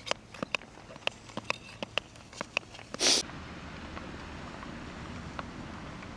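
Speed-skate blades clicking and scraping on hard outdoor ice in sharp, irregular ticks, about two a second. About three seconds in comes a brief loud rush of noise, and after it a steady hiss with a few faint blade ticks.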